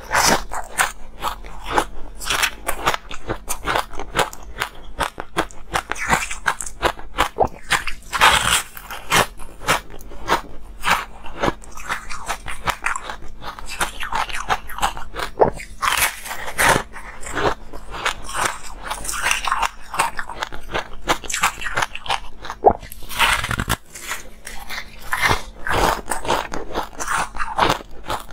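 Biting and chewing a porous, multicoloured block of ice up close: a dense, continuous run of crunches and crackles, with louder bites now and then.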